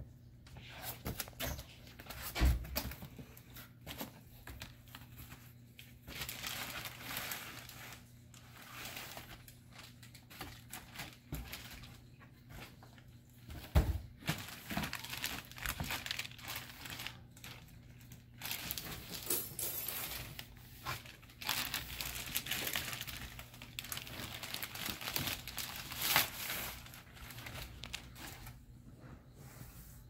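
Cardboard shipping box and a plastic mailer bag being handled and torn open: irregular crinkling, rustling and tearing, with a dull knock about two seconds in and a louder one about halfway.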